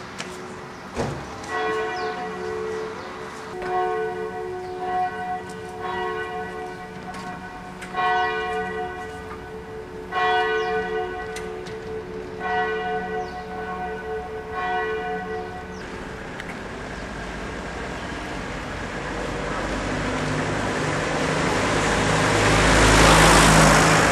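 Church bells ringing, a fresh round of strikes about every two seconds, dying away about two-thirds of the way through. Then a car approaches and passes, its noise rising to the loudest point near the end.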